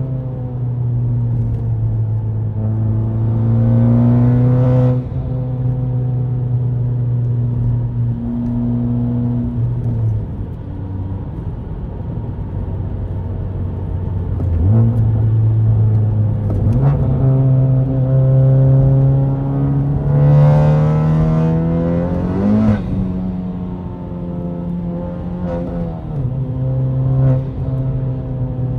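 Honda Civic Type R FK8's turbocharged 2.0-litre four-cylinder, tuned to about 400 wheel horsepower, driven hard. A steady engine drone, broken by a short pull a few seconds in and a longer one past the middle, where the pitch climbs with a rising hiss and then drops suddenly.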